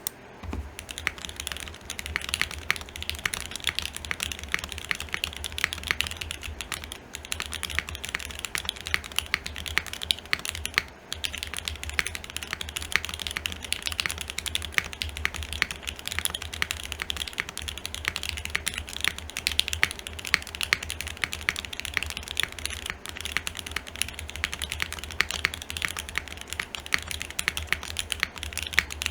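Continuous fast typing on a TGR x Singa Unikorn R2.1 custom mechanical keyboard with lubed Alpaca linear switches, FR4 plate and GMK keycaps: a dense stream of keystroke clacks, with two short pauses, about seven and eleven seconds in.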